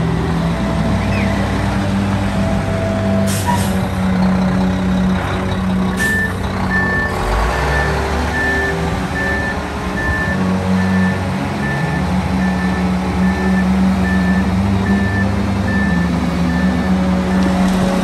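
Heavy truck's diesel engine running steadily, with a reversing alarm beeping at about two beeps a second from about six seconds in until near the end. Two short hisses of air, about three and six seconds in.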